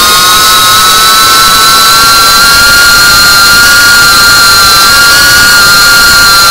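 FPV quadcopter's brushless motors and propellers whining at a steady throttle, several close pitches sounding together over a loud, steady hiss, heard through the onboard camera's microphone.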